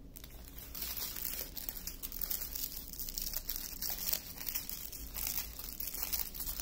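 Small clear plastic bags of diamond painting drills crinkling and rustling as they are picked up and sorted by hand, a dense run of fine crackles.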